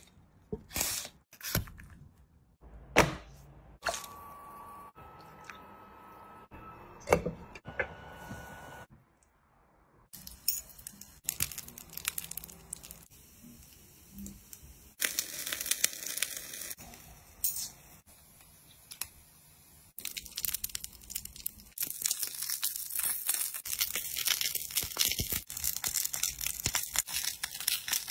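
Aluminium foil crinkling with sharp clicks as coarse salt is poured onto it, then food crackling and sizzling over hot charcoal, the crackle getting denser and louder in the last third.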